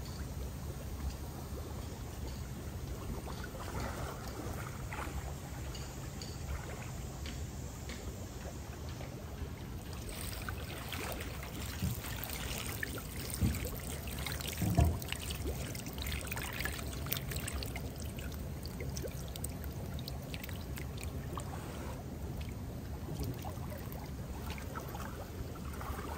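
Water trickling and sloshing in a concrete fish pond. From about ten seconds in come sharper splashes as a hand net is dipped and lifted out, with one loud knock about halfway through.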